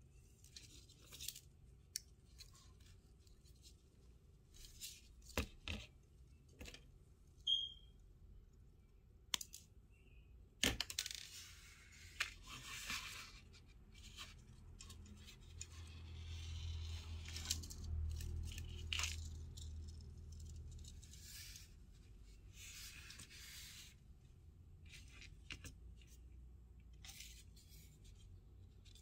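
Close-up handling of fishing tackle: fishing line rustling and sliding through a wire spring feeder and plastic float, with scattered sharp clicks and taps of the small metal and plastic parts. The sounds are faint and irregular.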